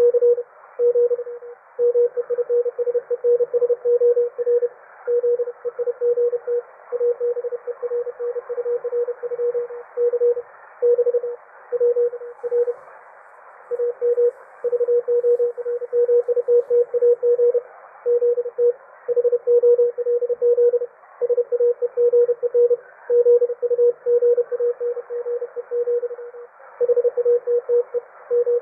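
Morse code (CW) signal received on an Icom IC-R71E shortwave receiver: a single tone of about 500 Hz keyed on and off in quick dots and dashes, over a light hiss of band noise.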